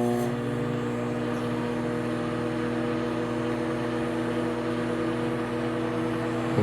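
Microwave oven running with a metal fork inside: a steady electrical hum and fan drone, with no crackle or snapping, since the fork is not arcing.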